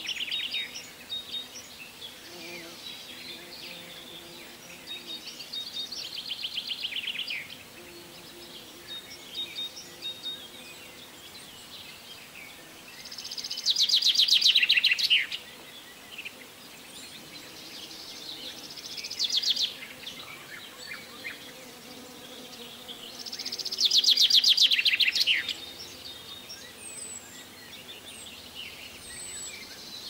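Songbird singing repeated fast trilled phrases, each a second or two long and falling in pitch toward its end, every few seconds; the loudest come about halfway through and again near the end, over a faint steady background.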